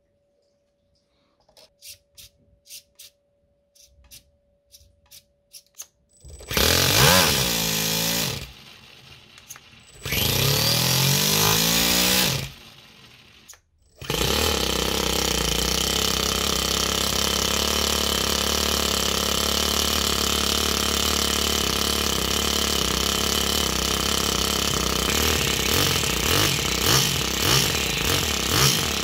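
A few light clicks, then a Toyan four-stroke nitro model engine is cranked over twice, each try a couple of seconds of spinning that dies away. On a third go, about 14 seconds in, it catches and keeps running steadily, a little unevenly near the end.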